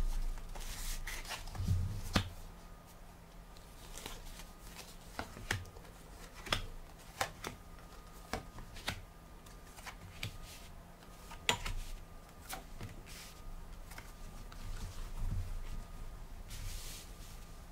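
A deck of tarot cards is shuffled for the first couple of seconds, then dealt one at a time onto the table, a light snap or tap as each card is laid down, about ten in all.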